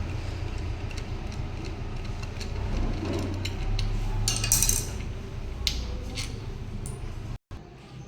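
Metal tools and bolts clinking and tapping while a motorcycle's clutch cover is being taken off, over a steady low hum, with a brief hiss about halfway through.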